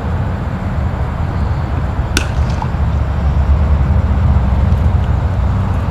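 Steady low rumble of wind buffeting the microphone, with one sharp crack of a cricket ball striking something hard about two seconds in.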